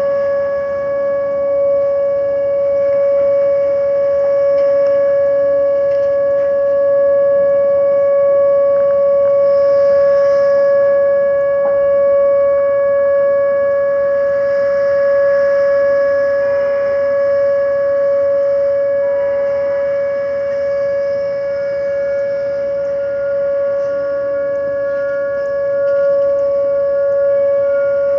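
Whelen outdoor warning sirens of a nuclear power station sounding a steady alert tone during a siren test: one unwavering pitch with overtones, its loudness swelling and fading slightly.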